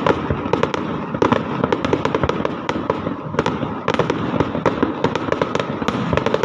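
Aerial fireworks going off: a dense, irregular run of sharp cracks and pops, several a second, over a continuous crackle.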